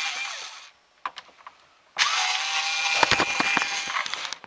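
A handheld power tool running, stopping about a second in, then starting up again about two seconds in and running with a few sharp knocks before it stops near the end.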